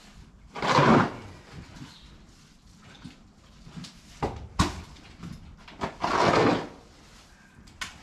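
A barn stall being cleaned out: two long scraping sweeps several seconds apart, with a few sharp knocks between them.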